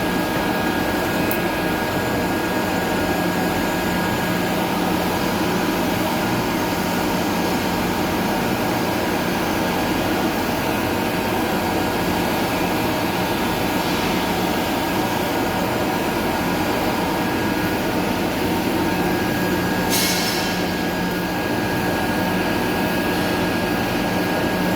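TIG welding on stainless-steel pipe: a steady electrical hum and hiss from the arc and welding machine, with one brief sharp click near the end.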